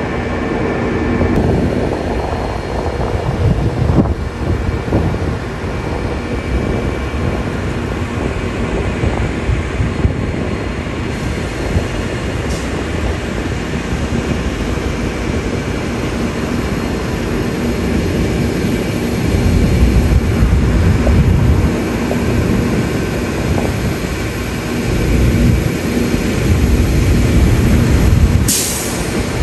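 Idling bus engine, a steady low rumble with a constant hum. It grows louder twice in the latter part, and a brief sharp hiss comes near the end.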